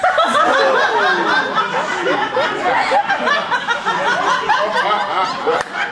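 Stand-up comedy audience breaking into loud laughter all at once in reaction to a punchline, many voices laughing together without letup.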